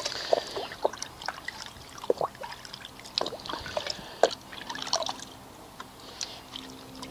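Hands swishing a small glass shot glass in a bucket of soapy water to rinse the car soap out of it: irregular small splashes and drips.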